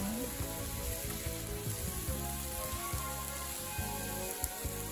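Marinated chicken and vegetable skewers sizzling steadily on foil over a barbecue grill.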